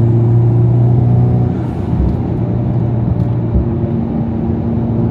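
Honda Civic Type R FL5's turbocharged 2.0-litre four-cylinder engine and road noise heard from inside the cabin while driving: a steady engine drone that eases off about a second and a half in and picks up again near the end.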